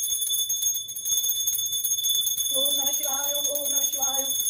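Small brass puja hand bell (ghanta) rung continuously for an aarti, a steady high ringing. About halfway through, a voice joins in, chanting in long held notes.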